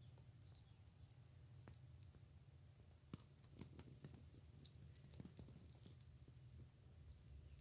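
Very faint small clicks and ticks of baby wild rabbits nibbling and chewing clover and grass, more of them in the second half, over a low steady hum.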